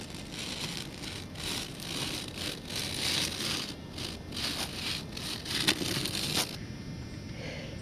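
Footsteps crunching in snow: a run of irregular crunches, several a second, that cuts off suddenly about six and a half seconds in.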